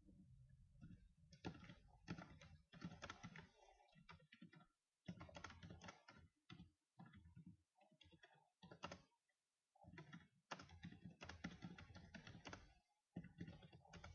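Faint computer keyboard typing in quick runs of keystrokes, broken by short pauses.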